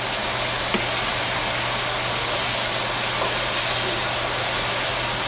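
Steady hiss with a low hum underneath, and one small click about a second in.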